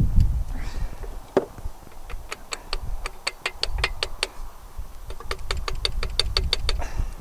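Small ball-pein hammer tapping a bolted fitting on a tractor's cast-iron rear axle casting: one knock, then two runs of quick light taps, about six a second, to break the fitting free of its O-rings.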